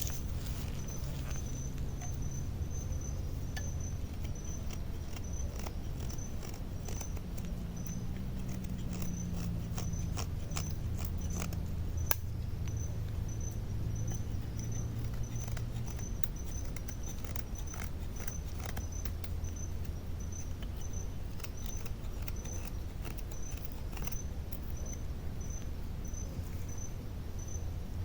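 An insect, cricket-like, chirping steadily about twice a second, over a constant low rumble, with scattered light clicks and scrapes.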